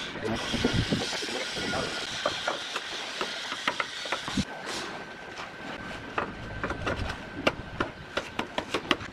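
Terracotta roof tiles clicking and knocking against one another as they are set and pressed into mortar, a run of sharp clacks that grows busier near the end. A steady hiss in the background stops about halfway through.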